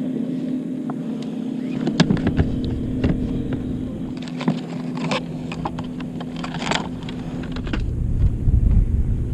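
Boat engine running steadily with a low hum, over which a plastic tackle box and lures are handled, giving sharp clicks and rattles about two seconds in and again in a cluster from about four and a half to seven seconds in.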